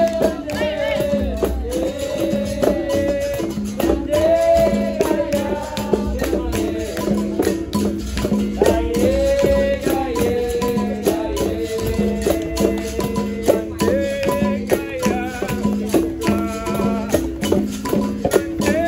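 Capoeira roda music: berimbau playing a steady rhythm with the shaking rattle of its caxixi, under a sung melody and quick hand-percussion strikes.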